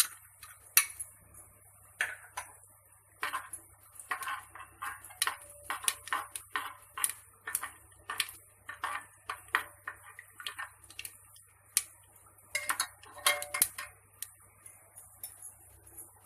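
A metal spoon clinking and scraping against a cooking pot while stirring spices in hot oil: irregular sharp taps, several a second, thinning out near the end, over a faint steady high hiss.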